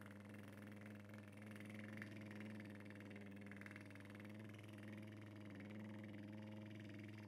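A man's soft, sustained lip trill: his lips buzz in a rapid flutter while he hums one low, steady note. It is a breathing exercise for vibrating the lips and face.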